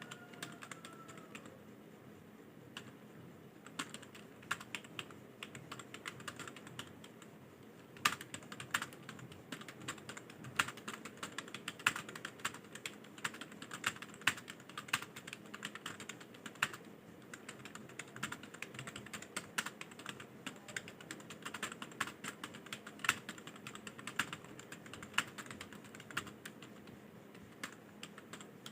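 Fast typing on a computer keyboard: an irregular stream of key clicks, sparser for the first several seconds, then quicker and denser.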